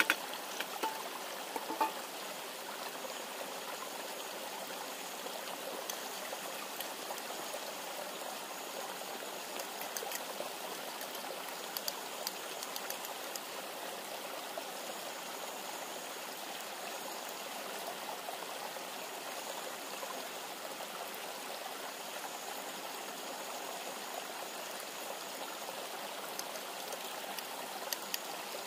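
Steady rushing of a river, with a few light clicks and taps near the start and near the end.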